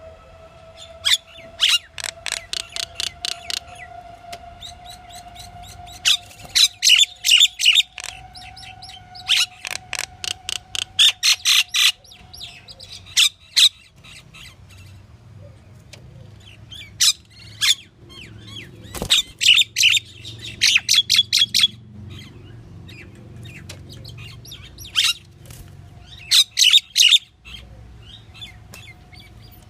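Pied myna giving runs of rapid, sharp chattering call notes, each run a second or two long, repeated several times with pauses between. A faint steady tone sounds underneath for roughly the first half.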